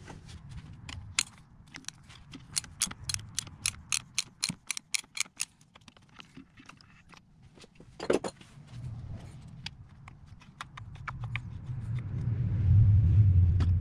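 Socket ratchet clicking in a quick run, about six clicks a second, while undoing the plastic filter housing cap on top of a DSG gearbox, then a single sharp knock about eight seconds in. Near the end a low rumble builds as the cap is turned off by hand.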